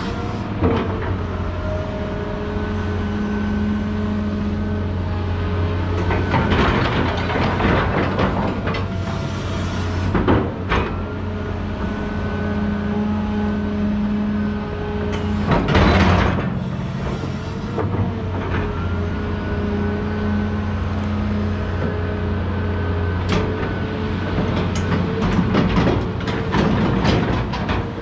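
Caterpillar 330 hydraulic excavator working: its diesel engine runs with a steady low hum, and a hydraulic whine rises and falls as the machine moves. Several harsh, noisy bursts break in, the loudest about sixteen seconds in.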